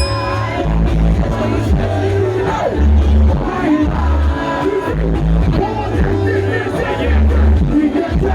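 Live pop music through a concert sound system: a heavy pulsing bass line under a singing voice, with a crowd faintly audible.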